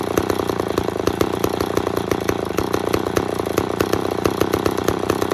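McCulloch 10-10 chainsaw's two-stroke single-cylinder engine running steadily at an even speed, with rapid, regular firing.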